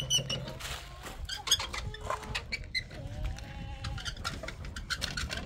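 A goat or sheep bleating: one drawn-out bleat about three seconds in, among scattered light knocks and clatter.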